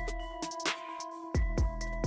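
Electronic background music: held tones with a few sharp percussive hits, and the bass drops out for about a second mid-way.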